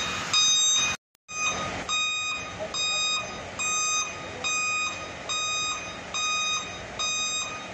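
An electronic warning beeper sounds a steady series of short, high-pitched beeps, about one a second, over faint workshop hiss. The beeping breaks off for a moment about a second in.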